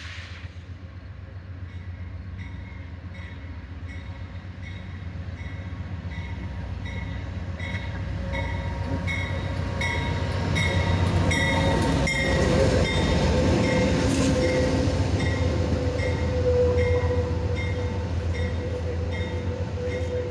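Amtrak passenger train with bilevel Superliner cars pulling into a station, its low rumble growing louder as the locomotive approaches and passes about ten seconds in. A bell rings steadily, about one and a half strokes a second, and a steady squeal rises in the second half as the train slows.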